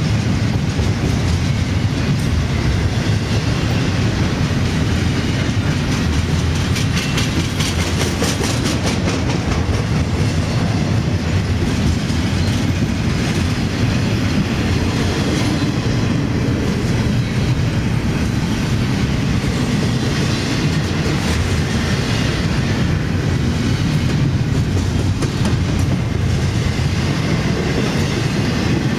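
Intermodal freight train rolling past: a steady rumble of double-stack container cars with the wheels clicking over rail joints, the clicking most distinct around seven to nine seconds in.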